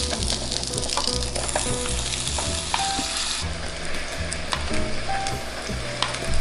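Croissant dough sizzling on the hot plates of a Cuisinart waffle maker, a steady crackling hiss that softens about three seconds in as the lid is closed over it.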